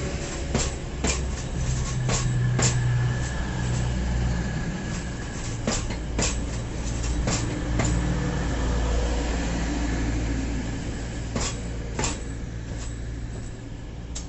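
A train rumbling low and steadily, with irregular sharp clicks and clunks through it, like wheels running over rail joints and points.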